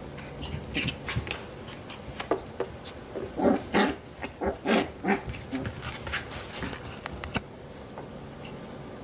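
Seven-week-old Coton de Tulear puppies playing: a quick run of short puppy yaps and growls about three to five seconds in, among scuffling and small knocks.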